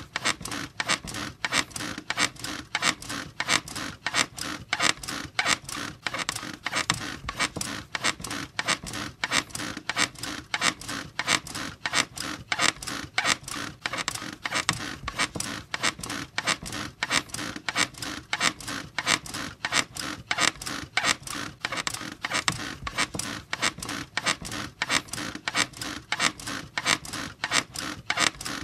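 Squeaky bed creaking over and over in a steady, fast rhythm.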